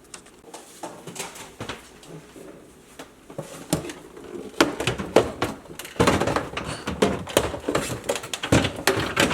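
Food containers and bottles being set back onto fridge shelves: irregular knocks, clunks and rattles of plastic and glass. They are sparse at first and come thick and louder over the last few seconds.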